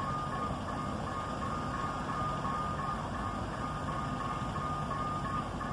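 Level-crossing warning signal sounding a steady train of repeated electronic beeps, warning of an approaching train. A low rumble runs underneath.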